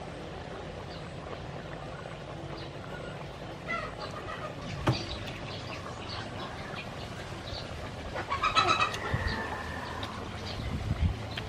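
Outdoor ambience with small birds chirping here and there and a chicken clucking loudest about eight to nine seconds in. There is a single sharp click about five seconds in.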